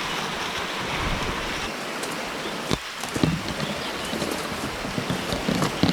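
Steady rush of river water flowing after a flood, with sharp snaps and crackles starting about three seconds in.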